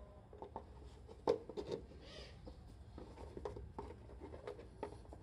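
Scattered clicks and light taps of small plastic and metal parts being handled on a removed Yamaha XT225 headlight housing, the sharpest click about a second in, with a short scrape near two seconds.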